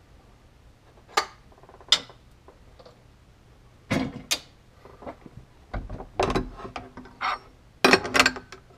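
Hockey skate being handled and clamped into a skate sharpener's holder: a series of sharp clacks and knocks, a few at first and then bunched together, with a heavier thud about six seconds in.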